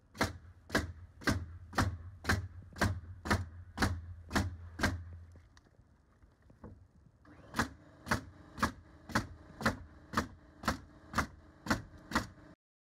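Nail gun firing nail screws in quick succession, about two shots a second: about ten shots, a pause of about two seconds, then about ten more with a steady hum behind them. The second run comes from a pneumatic nailer fastening cedar fence boards.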